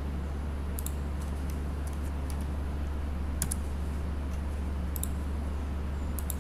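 Scattered computer keyboard and mouse clicks, a handful of sharp taps at uneven spacing, the strongest about three and a half seconds in, over a steady low hum.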